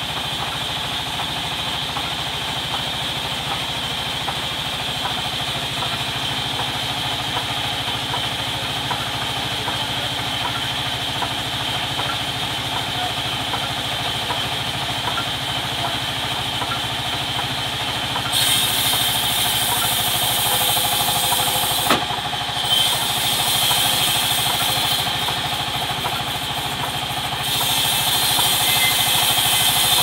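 Band sawmill running with a steady hum. From about 18 seconds in, its blade bites into a large log and adds a loud, high sawing hiss, broken by a sharp knock a few seconds later and a brief lull before the cut goes on.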